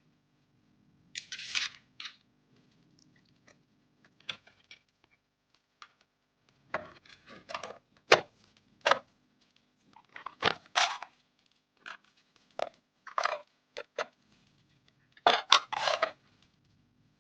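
Close-up hand-handling sounds of PC parts and packaging: irregular crinkling and rustling, with a few sharp clicks.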